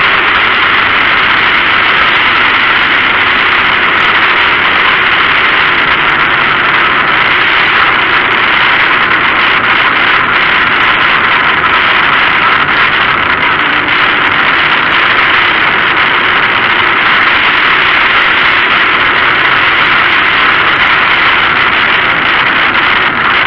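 Loud, steady engine and wind noise from a dirt-track speedway car, heard through its own onboard camera, with little change in pitch as the car runs at an easy pace off the track.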